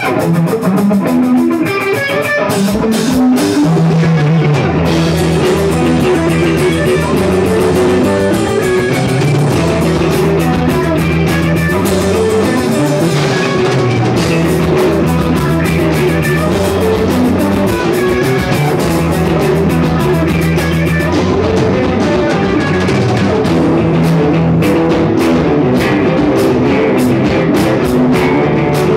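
Rock music played on guitar and drum kit, with a steady repeating bass line.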